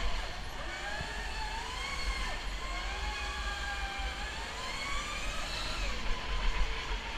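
Indoor go-kart's electric motor whining, its pitch rising as the kart accelerates out of a corner, dropping around two seconds in, then climbing again down the straight before easing off near the end. Under it runs a low rumble of tyres and wind on the onboard microphone.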